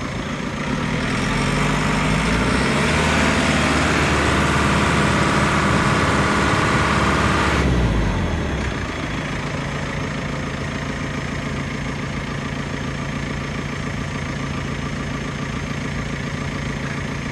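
JCB 5CX backhoe loader's diesel engine idling, then revving up about a second in and held high with a whine on top for several seconds. Near the middle the whine cuts off suddenly and the engine falls back to a steady idle.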